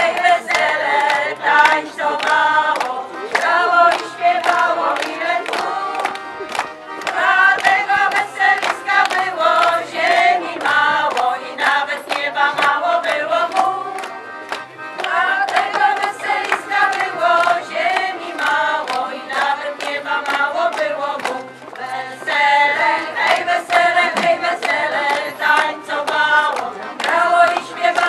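Women's folk choir singing a Polish folk song together, accompanied by accordion, with a steady beat.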